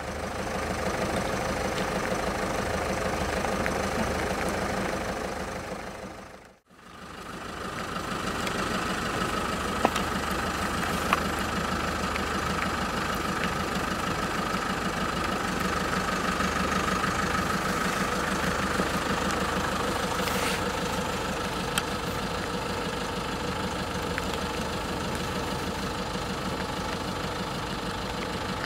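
Steady rain with a car engine idling underneath. The sound fades out and back in about six seconds in, and a few sharp taps stand out.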